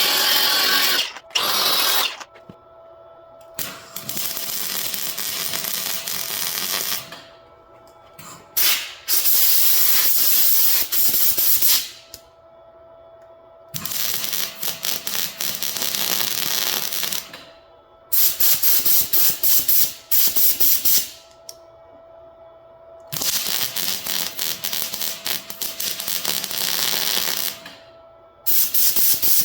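MIG welder (Miller 212) laying short spot welds on a thin sheet-metal body panel. Each weld is a few seconds of dense, high crackle, and there are about four of them. Between the welds come stretches of steady compressed-air hiss blown over each fresh weld to cool it and keep the panel from warping.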